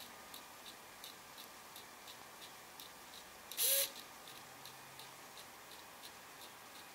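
Small hobby servo motor stepping slowly under PWM control: faint, even ticks at about three a second. A short, louder burst of noise comes about halfway through.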